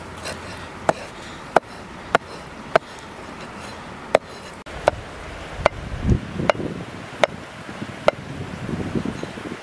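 Cleaver chopping cooked pig intestine on a round wooden chopping block: about ten sharp knocks, one every half second to second.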